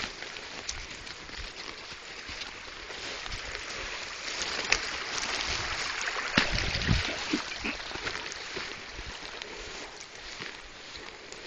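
Footsteps swishing and rustling through tall dry grass and brush, louder through the middle, with a few sharp snaps or knocks about five and six and a half seconds in.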